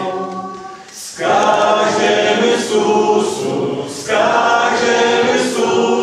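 A congregation singing a gospel chorus together, unaccompanied, in two sung phrases that start about a second in and about four seconds in.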